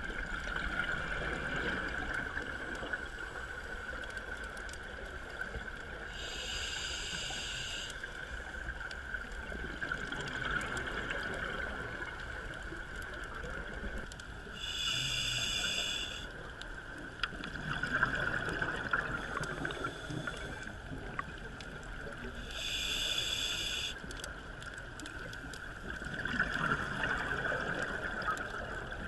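Scuba diver breathing through a regulator underwater: a short hissing inhale about every eight seconds, each followed a few seconds later by a rush of exhaled bubbles, three breaths in all. A steady high-pitched hum runs underneath.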